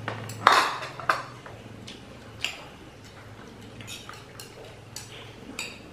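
Metal spoon clinking and scraping against a ceramic bowl during eating: a handful of irregular sharp clinks, the loudest about half a second in, over a steady low hum.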